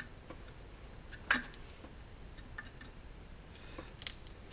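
Faint clicks and two short knocks, the first about a second in and the louder, another near the end, from a partly dismantled small engine being handled on a workbench.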